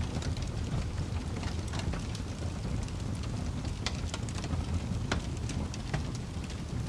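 Wood fire burning with a steady low rumble of flames and irregular pops and snaps of the burning wood, a few sharper cracks among them.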